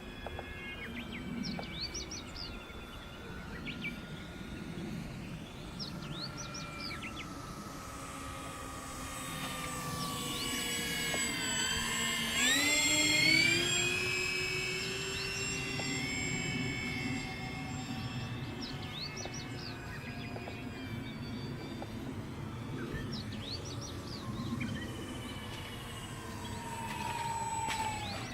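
Whine of the twin electric motors of an RC Albatross HU-16 flying boat, loudest about halfway through as the model passes, its pitch sliding down afterwards. Birds chirp faintly in the background.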